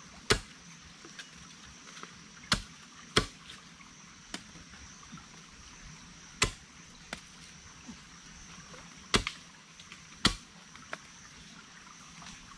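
Young mai rai bamboo shoots being snapped off, heard as about six sharp cracks at irregular intervals with a few fainter snaps between. A steady high insect drone runs underneath.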